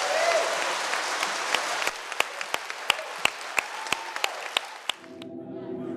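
Concert audience applauding after a song, with a few sharp individual claps standing out from the crowd. The applause cuts off abruptly about five seconds in, and music begins.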